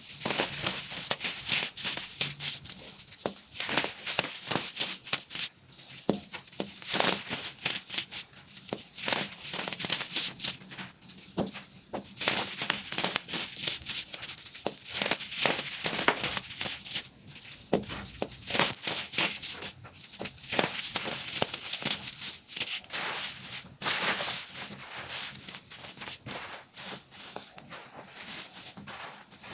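Baking soda being crushed: a dense, irregular crunching and crackling made of many short sharp crunches.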